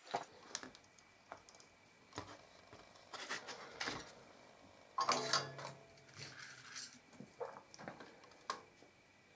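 Handling noise from a circuit board with potentiometer shafts being moved about on a cardboard sheet: light clicks and scraping rustles in a few short clusters, the loudest about five seconds in.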